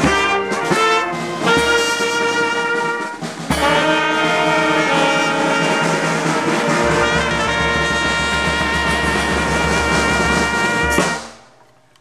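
Brass band with sousaphone, trumpets, snare drums and bass drum playing a march. It plays a few short phrases, then holds a long final chord that cuts off about a second before the end.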